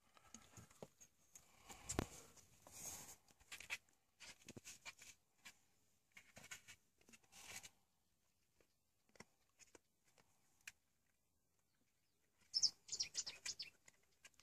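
Faint, scattered scuffs and taps of a climber's hands and rock shoes on a limestone wall, then a quick run of high bird chirps near the end.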